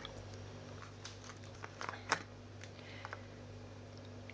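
Faint scattered clicks and taps of plastic bottles and a beaker being handled, with one sharper tap about two seconds in, over a low steady hum.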